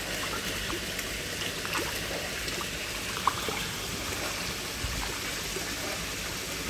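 Water running steadily into a koi pond, with small splashes and drips scattered through it and one short sharp tick about three seconds in.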